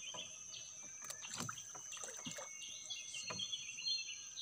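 Light splashes and knocks as a scoop net is worked in the water beside a small boat, over a steady high insect drone and repeated bird chirps.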